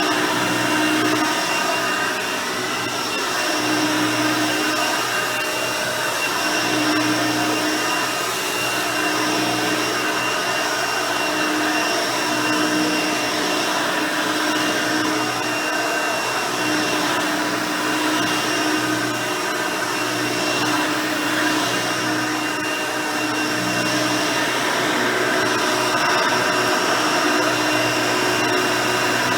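Hoover Elite 350 upright vacuum, fitted with a 5-amp motor and the original 9-blade fan, running steadily while vacuuming carpet. It gives an even whine with a lower tone that comes and goes every few seconds.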